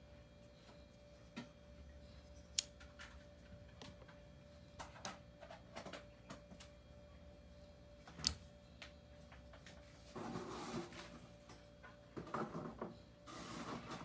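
Faint clicks and snaps of Leatherman Raptor Rescue folding shears being unfolded and handled, with a sharper click about two and a half seconds in and another about eight seconds in, then rustling handling noise over the last few seconds. A faint steady hum sits underneath.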